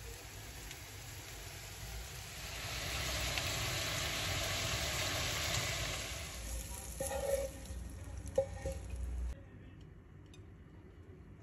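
Truffle mushrooms sizzling in butter in a pan. The sizzle swells and then fades, followed by a few short knocks of a utensil, before it cuts off abruptly.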